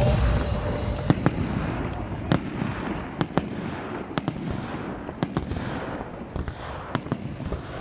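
Fireworks display: a deep rumble of shell bursts that fades over the seconds, with a dozen or so sharp cracks and pops scattered irregularly through it.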